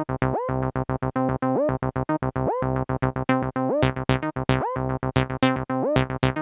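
MAM MB33 analog bass synthesizer, a TB-303 clone, playing a fast sequenced acid bassline of short repeated notes. A resonant filter chirp rising in pitch comes back about once a second.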